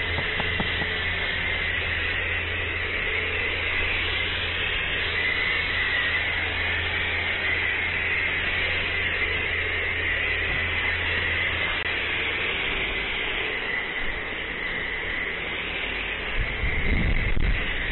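Pressure foam gun at a self-service car wash hissing steadily as it sprays snow foam over a motorcycle, over a steady low hum. A rougher rumbling joins near the end.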